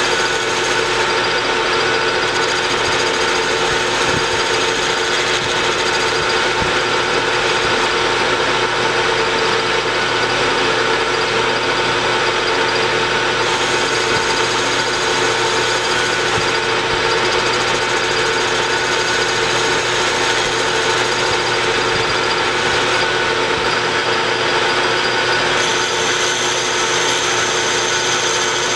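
Metal lathe running under power while a carbide-insert tool turns down a metal spacer held on an arbor, making a steady machine hum with several held tones over the hiss of cutting. The high tones shift slightly a few times.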